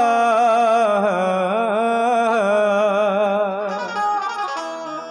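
Qawwali music: a male voice sings a wordless, ornamented melody over sustained harmonium tones, trailing off near the end.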